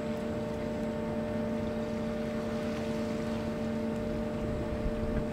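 A boat's engine running steadily: an even, unchanging hum over a haze of water and wind noise.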